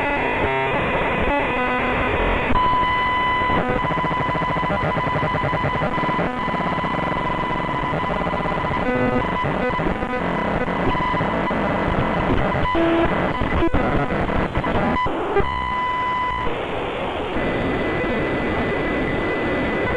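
Harsh, distorted electronic static that cuts in suddenly out of silence, with a steady high tone sounding on and off over it, typical of a signal-interruption effect in a fake emergency alert.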